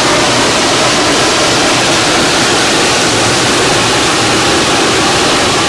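Giessbach Falls' water crashing down close by: a loud, steady rush of falling water with no breaks.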